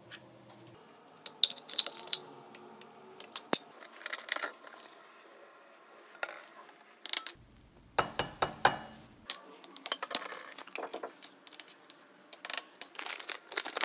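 Irregular clinks, taps and rustles of kitchen utensils and containers as baking ingredients are measured out: a metal spoon against a tin, a measuring cup, bottles and a glass mixing bowl. A denser run of clatter and a few dull knocks comes about two thirds of the way through.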